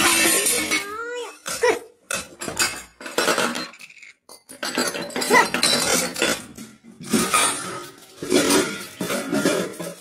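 Metal kitchen pots, bowls and a wok lid clattering and clinking in irregular bursts as a cat clambers over them on the counter.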